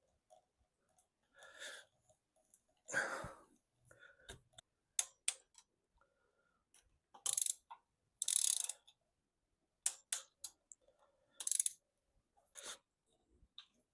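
Metal engine parts and hand tools being handled during engine assembly: scattered clicks and clinks with a few short scraping rattles.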